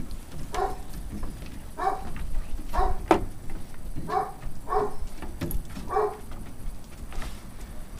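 Footsteps knocking on a hollow wooden deck, about one a second, each step ringing briefly in the boards.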